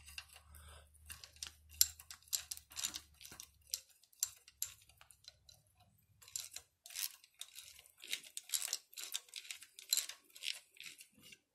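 Socket ratchet clicking in quick runs as a rocker-arm poly lock on a small-block Chevy's Vortec cylinder head is backed off, with short pauses between strokes.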